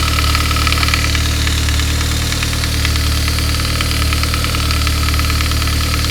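1999 Saab 9-3 engine idling cold with a steady, fast clattering rattle over the idle. It is the sign of a worn upper timing chain guide: the valve-cover-mounted guide's plastic has gone hard and brittle and shrunk in its bracket, so it rattles until the engine warms up, while the chains themselves are fine.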